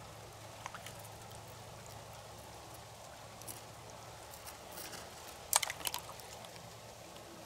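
Faint scattered clicking and crackling from a clump of oysters exposed at low tide, with a louder cluster of sharp clicks about five and a half seconds in, over a low steady hum.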